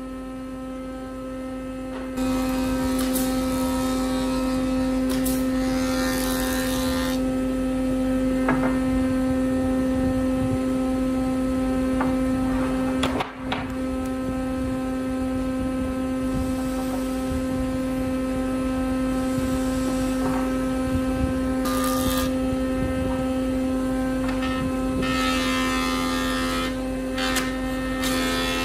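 Taiyo jointer running with a loud, steady hum, its cutterhead planing a board, adding stretches of hissing cutting noise a few seconds in, about twenty-two seconds in and near the end.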